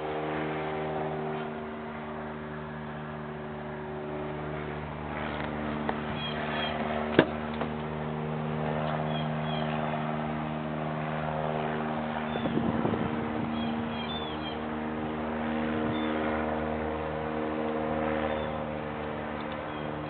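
Steady hum of a vehicle idling, with one sharp click about seven seconds in and a brief scuffing noise around the middle. Birds chirp a few times.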